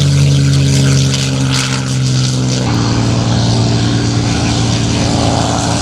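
Packard Merlin V-12 engines of P-51 Mustang warbirds running with a steady propeller drone. The engine note changes abruptly about two and a half seconds in.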